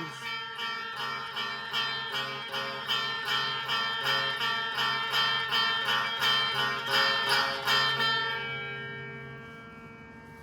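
Music of quick, evenly repeated ringing notes, plucked-string-like, about three strokes a second, fading away about eight seconds in.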